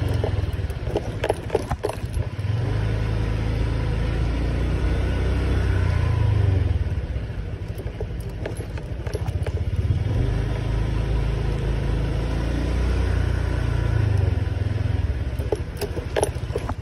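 Honda scooter riding along at low speed, its engine and wind making a steady low rumble, with a few light rattling clicks about a second in and again near the end.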